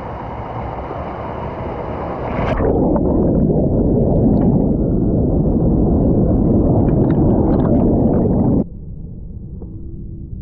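Muffled rushing water noise, getting louder and duller about two and a half seconds in, then dropping sharply to a quieter wash near the end.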